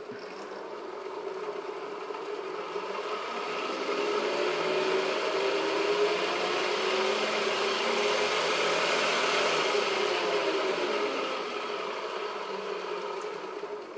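2-horsepower DC permanent-magnet treadmill motor spinning a Bridgeport mill's step-pulley belt drive, run up on its variable speed control: a motor whine and belt whir that rise in pitch and loudness over the first few seconds, hold steady, then drop as it slows near the end.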